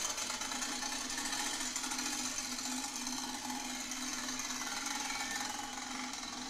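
Turbospoke bicycle exhaust on a moving bicycle: its plastic sound cards flap against the turning spokes in a rapid, steady buzzing rattle. The sound slowly fades as the bicycle rides away.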